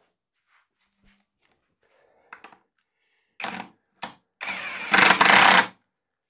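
Power drill run in two short trigger bursts, then a longer run that gets louder and stops near the end, drilling holes for wall plugs.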